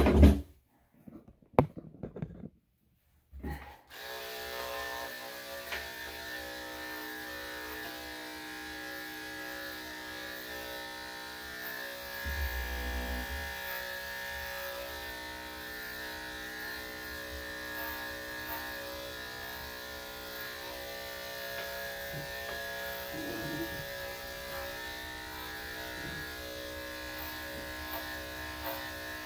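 Corded electric dog clippers running with a steady hum as they cut through a dog's body coat. The sound breaks up and drops out a few times in the first few seconds before the steady hum settles in, with a brief low bump about halfway.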